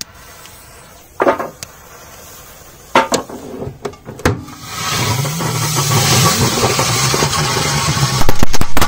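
Metal clanks as the oven door is handled and shut on the firecrackers, then a hiss that grows louder as the fuses burn inside the closed oven. Near the end, a quick run of loud firecracker bangs goes off inside the oven.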